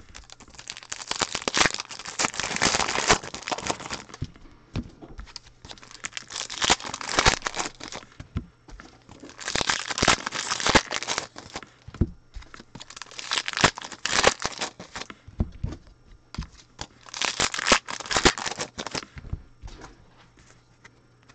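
Foil trading card pack wrappers being torn open and crinkled by hand, in about five separate spells of crackling.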